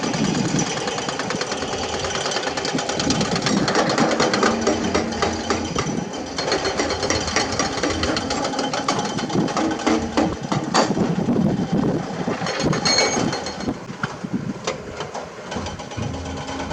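Hydraulic excavator's diesel engine running under load while it works limestone, with fast irregular clattering and knocking of rock against steel and a sharper knock about eleven seconds in.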